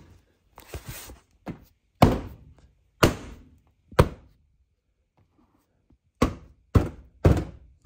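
A series of sharp thunks and knocks, about eight in all, with a pause of nearly two seconds in the middle: trim parts being knocked into place on a car's front end during reassembly.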